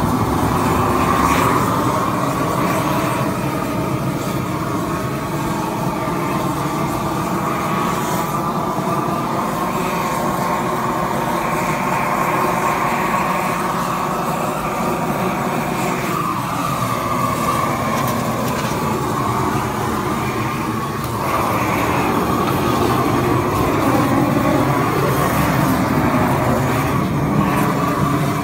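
Propane roofing torch burning steadily, a continuous rushing noise with a hum of steady tones that bend and waver for a few seconds midway as the burner is moved.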